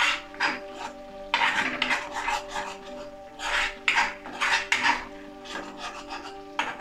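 A steel spoon scraping and stirring a thick paste of onion and chilli powder frying in a metal kadai, in repeated strokes about twice a second. Instrumental background music plays underneath.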